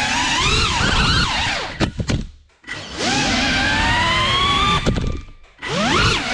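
GEPRC Cinelog 35 cinewhoop FPV drone's brushless motors whining, the pitch rising and falling with the throttle. Twice, about two seconds in and again about five seconds in, the throttle is cut: the whine drops away almost to nothing for about half a second, then spins back up.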